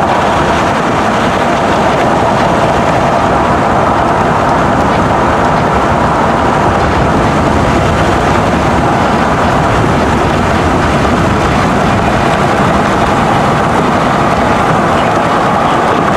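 Outdoor tornado warning siren sounding a loud, steady tone, with wind rumble on the microphone underneath.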